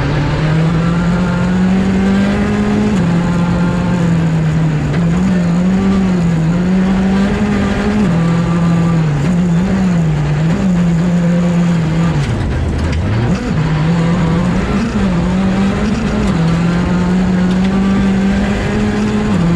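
Skoda Fabia R5 rally car's turbocharged 1.6-litre four-cylinder engine at high revs, heard from inside the cabin, its pitch rising and falling with throttle and gear changes. About twelve seconds in the revs drop sharply, then climb again as it pulls away.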